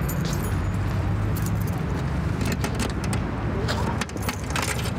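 Steady low rumble of city traffic with scattered small clicks. Near the end comes a metallic rattle of a key working a padlock on a box.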